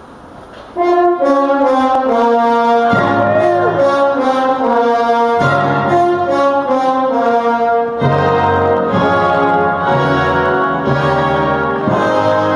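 Instrumental background music with brass playing a melody, starting just under a second in; low bass notes join about three seconds in.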